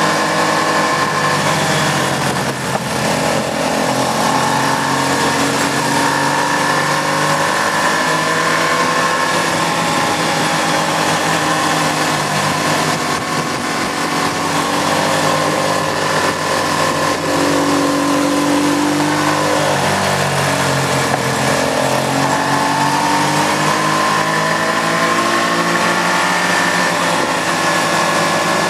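Sport motorcycle engine heard from on board, its pitch rising and falling as the throttle is worked through a run of bends, over a steady rush of wind noise.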